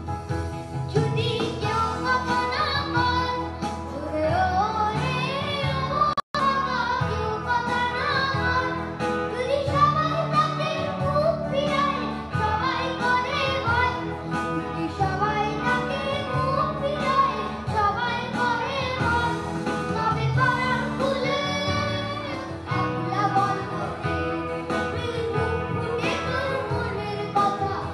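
A group of schoolchildren singing a song together into microphones. The sound cuts out for an instant about six seconds in.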